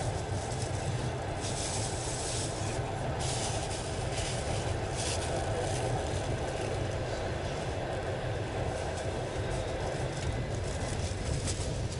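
Passenger train carriage running at speed, heard from inside: a steady low rumble of wheels on the rails, with several short bursts of hiss in the first half.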